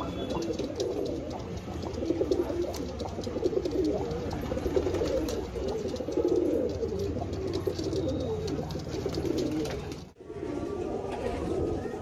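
Many domestic highflyer pigeons cooing at once, their low coos overlapping into a continuous warbling, with scattered light clicks among them. The sound drops out briefly about ten seconds in, then the cooing resumes.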